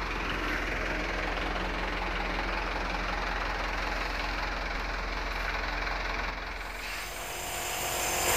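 Air compressor running steadily with a low, rapidly pulsing hum. Near the end a hiss of compressed air rises as the spray gun starts for the epoxy coat.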